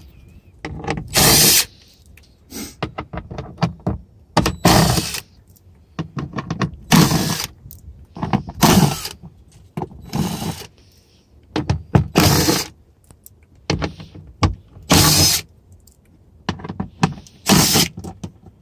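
Ratchet wrench with a 10 mm socket clicking in short bursts every second or two, backing out the door's bolts, with small clicks and knocks in between.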